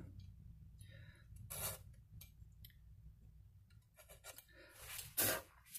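Fret slot cleaning tool, a small saw-like blade, scraping out a fret slot in a pearloid fretboard with a few short, faint strokes. The strongest strokes come about one and a half seconds in and near the end.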